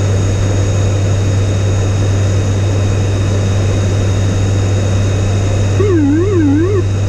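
The ATR 72-500's two turboprop engines and six-blade propellers droning steadily with a deep, even hum, heard from inside the cockpit. Near the end a warbling tone sweeps up and down about three times over roughly a second.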